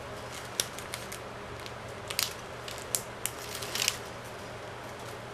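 Plastic packing straps being woven by hand: a strap threaded and pulled through the weave gives scattered sharp plastic clicks and ticks, with a longer scraping rasp of strap sliding against strap a little before the 4-second mark.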